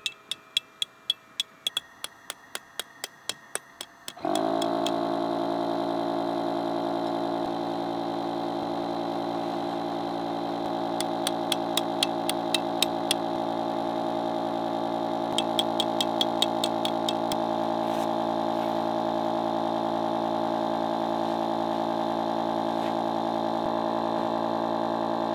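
A portable electric air pump switches on about four seconds in and runs with a steady hum while it inflates an air tent. Before it starts there is a run of regular sharp ticks, about three a second, and two more short runs of ticks come through the hum later.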